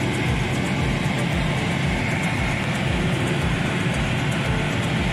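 Car driving: steady road and engine noise with a low, uneven rumble.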